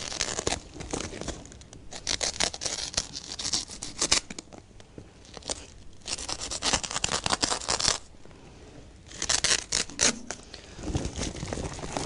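Knife slicing through the woven fabric of a grow bag, a rasping tearing of the fibres in several runs with short pauses between.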